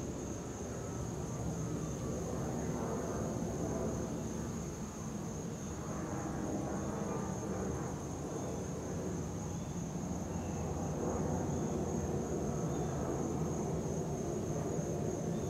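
Distant Boeing 737-700's CFM56-7B turbofan engines heard from the ground as the jet flies high overhead: a steady low rumble of jet noise. A thin steady high tone runs above it.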